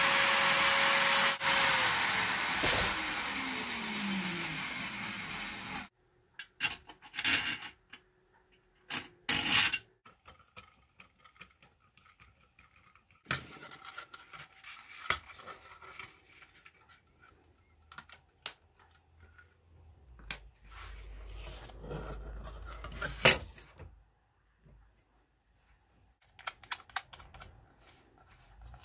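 Bench drill press running as it drills the metal housing of an old pressure gauge. The motor is then switched off, and its whine falls steadily as it winds down. Afterwards come scattered clicks, knocks and rubbing from hand work on small metal parts.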